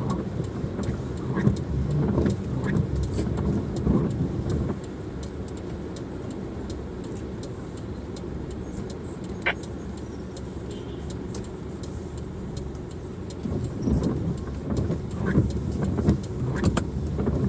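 A car driving, its engine and road noise swelling in the first few seconds and again near the end, steadier and quieter in between, with scattered sharp ticks throughout.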